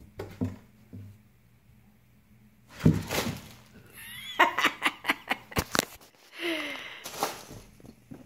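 Cats playing at a cardboard box: irregular thumps, knocks and scrapes of paws and bodies against the cardboard and wooden floor, loudest about three seconds in, with brief bursts of a person's laughter in between.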